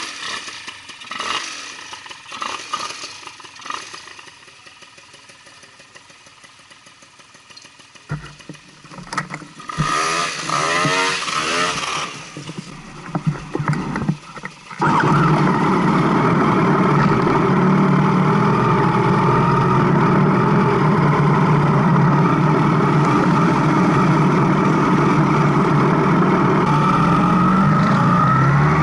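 Yamaha FZ-1 inline-four motorcycle engine being turned over on its electric starter, catching about halfway through after a stretch of cranking, then running steadily at idle. The bike had been left standing unused.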